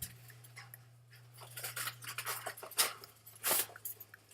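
A scattering of faint, irregular clicks and taps over a steady low electrical hum, with the loudest clicks about three seconds in and again half a second later.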